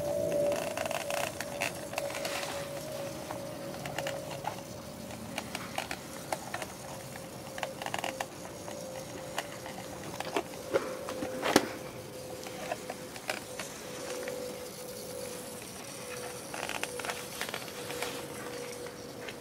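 Small plastic clicks, taps and rattles from a Blade 450 RC helicopter being handled, with one sharper click about eleven and a half seconds in. A steady faint hum runs underneath, sinking slightly in pitch.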